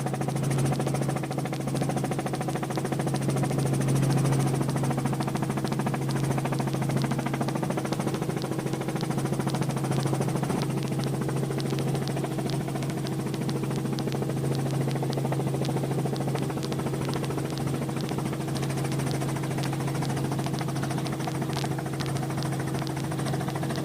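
Piston-engined helicopter running steadily in flight during its descent: a constant engine-and-rotor drone with an even low hum.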